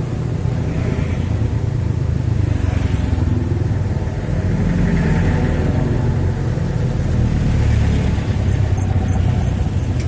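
Motor vehicle engines running, a steady low rumble that swells slightly about halfway through.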